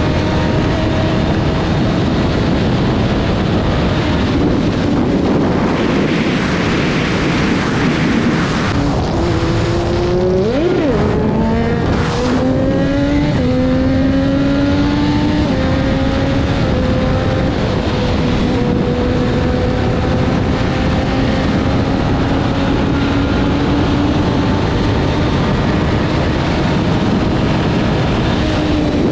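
Triumph Daytona 675's inline three-cylinder engine running under way, its note climbing and then dropping at each upshift as it pulls through the gears, with a steady rush of wind noise over it.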